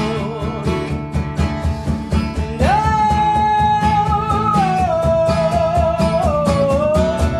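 Live acoustic band music: acoustic guitar and acoustic bass guitar play over a steady percussive beat. About two and a half seconds in, a long held melody note comes in and steps down in pitch twice.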